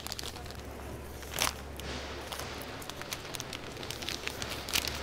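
Plastic bouquet-wrapping film rustling and crinkling as it is gathered and handled around the stems, with small crackles and two louder crinkles, one about a second and a half in and one near the end, over a low steady hum.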